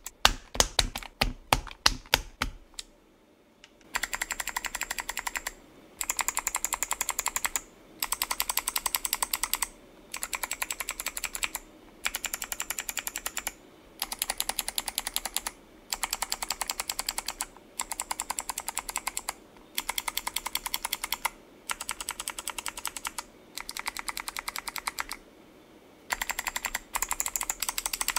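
Kailh clicky mechanical keyboard switches being typed on, each press a sharp click. A few separate keystrokes come first, then after a short pause a run of rapid typing bursts about a second and a half each, with brief gaps between them and one longer gap near the end.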